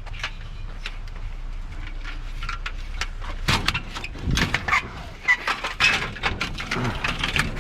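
Scrap parts being handled and broken down by hand: a run of clicks, knocks and light clatter, busier from about halfway in, over a low steady hum.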